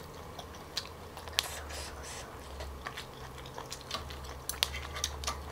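Soft mouth-chewing with scattered small clicks and scrapes of a metal fork against a grill pan, the clicks coming more often near the end.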